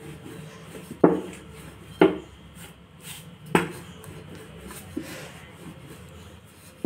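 Rolling pin rolling dough out thin on a rolling board, knocking sharply against the board about five times, roughly once every second or so.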